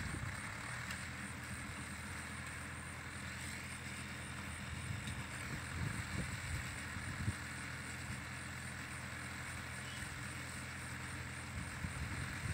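Tractor engine running steadily while pulling a working straw baler through a harvested field, with a few louder low pulses about halfway through.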